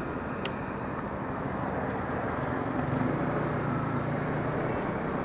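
A motor vehicle engine running steadily, with traffic noise, and one short click about half a second in.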